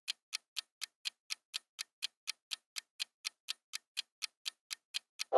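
Quiz countdown timer sound effect: clock-like ticks, about four a second, steady and even. A much louder sound effect cuts in right at the end.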